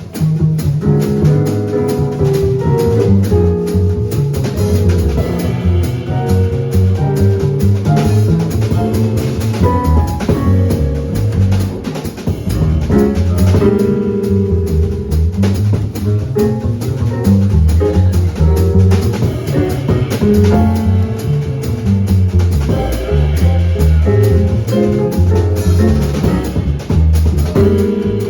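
Small jazz group of drum kit, saxophone, piano and bass playing a steady-tempo tune, with held melody notes over a walking bass line and continual cymbal strokes.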